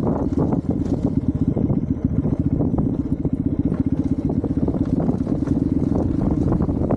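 Hero Xpulse 200's single-cylinder four-stroke engine running at low revs, a rapid, even firing beat that holds steady.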